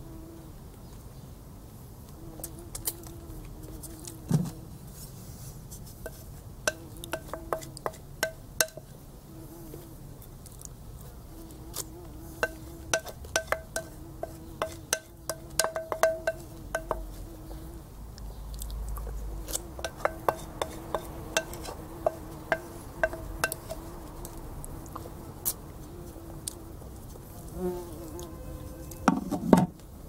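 Eating with a wooden spoon from a ceramic bowl: many sharp clicks and scrapes of spoon on bowl, over an insect buzzing on and off.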